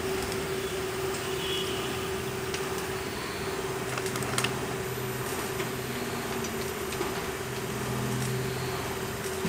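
Cable caterpillar haul-off machine running: a steady motor hum with a constant mid-pitched tone, and a lower hum that swells twice. A couple of faint clicks about four and a half seconds in.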